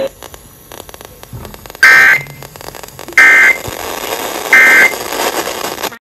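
Emergency Alert System end-of-message code over FM radio: three short bursts of shrill two-tone digital data buzz, about 1.3 s apart, marking the end of the alert. Faint radio crackle comes before the first burst, which sounds nearly two seconds in.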